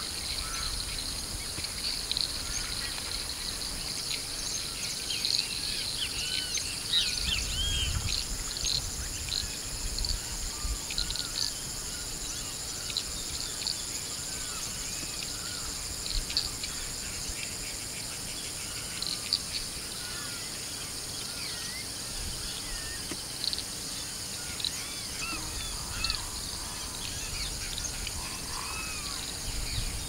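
Many birds chirping and calling in a mixed chorus, short notes and rising-and-falling calls overlapping throughout, over a steady high insect drone. Low wind rumble on the microphone at times.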